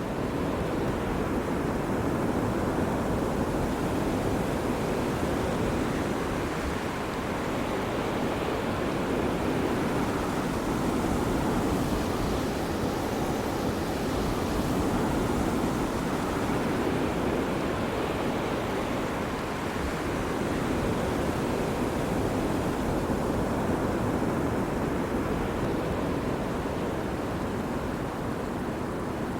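Ocean surf: waves breaking and washing up on a beach, a continuous rushing wash that swells and eases gently, fullest about halfway through.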